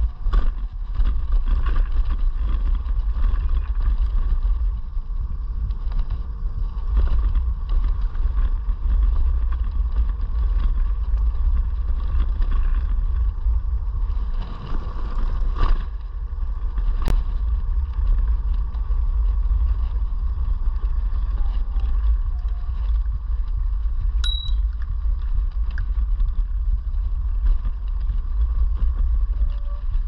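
Ride noise from an iScooter E9D electric scooter under way: a heavy low rumble of wind and road with a steady whine over it. A single sharp click comes about halfway through.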